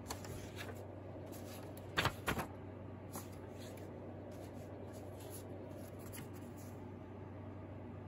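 Sheets of drawing paper being handled and put down on a wooden desk: light rustling and scraping, with a few sharp knocks about two seconds in, over a steady low hum.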